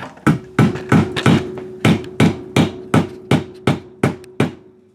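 A hammer tapping metal, about a dozen quick even blows, roughly three a second, over a steady metallic ring. It is driving a Honda ATC250R swingarm bearing into its bore, a part meant to be pressed in.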